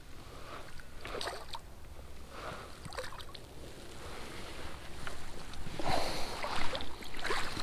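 Hooked rainbow trout splashing at the surface of the lake as it is drawn into a landing net, in several short bursts, the loudest in the last couple of seconds.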